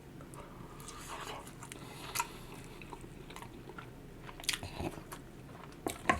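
A person biting and chewing food close to the microphone: soft wet mouth sounds with scattered crisp clicks and smacks, the sharpest about 2, 4.5 and 6 seconds in.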